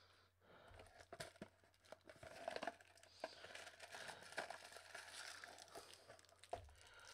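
Faint crinkling and rustling of plastic candy wrappers and a cardboard box being handled, with scattered light clicks.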